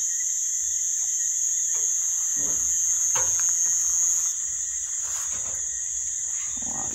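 Steady high-pitched chorus of crickets, with a second, higher band of the chorus that cuts off about four seconds in. A few faint knocks sound under it.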